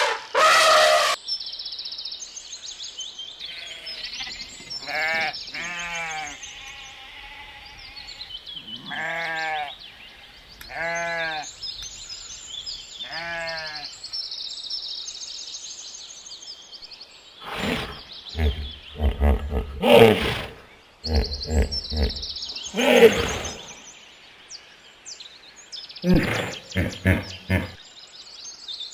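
Sheep bleating, several wavering calls in the first half, over steady bird chirping. In the second half there are louder sudden bumps and rustling noise.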